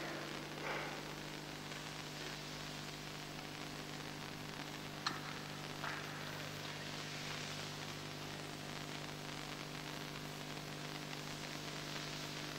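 Steady hiss with a constant low hum, the background noise of an old taped broadcast, with no music playing. There is a single faint click about five seconds in.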